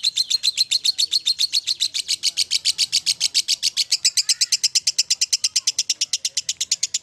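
Lovebird singing a long, unbroken ngekek: a rapid string of high, shrill chirps at about ten a second, going on without a pause.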